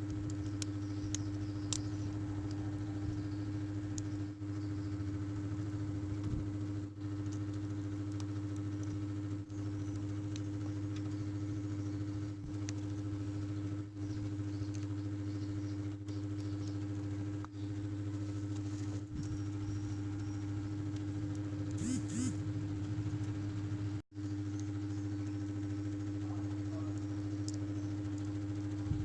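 Hair dryer running with a steady motor drone, with a few faint clicks over it.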